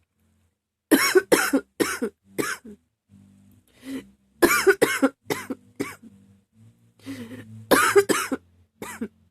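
A woman coughing in three fits of about four coughs each, with short breaths drawn between the fits.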